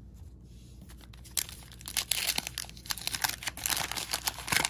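Waxed-paper wrapper of a 1989 Topps hockey card pack being torn open and crinkled by hand, a dense crackling that starts about a second and a half in.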